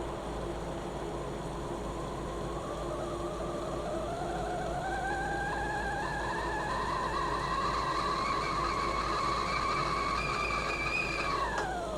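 Whistling tea kettle at the boil over a steady hiss of steam. The whistle comes in about three seconds in, rises in pitch and then holds steady. Near the end it drops in pitch and dies away, followed by a short click.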